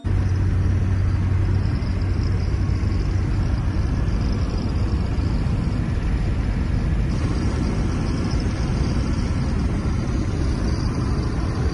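Steady road noise and engine rumble heard inside a moving car, with a strong low hum and no change in pace.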